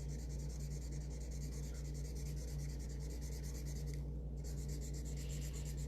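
A marker colouring in on paper, with steady back-and-forth scratchy strokes and a brief pause about four seconds in. A steady low hum runs underneath.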